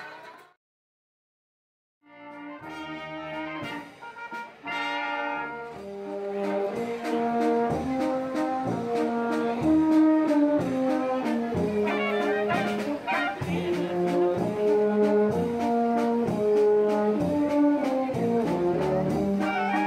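Guitar-and-accordion music fades out at the start. After about a second of silence, a traditional Tyrolean wind band of tubas, baritone horns, trumpets and clarinets starts playing, and it grows fuller and louder about six seconds in.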